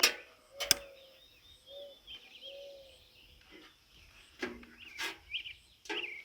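Small birds chirping, with several sharp clicks and knocks; the loudest come at the start and just under a second in.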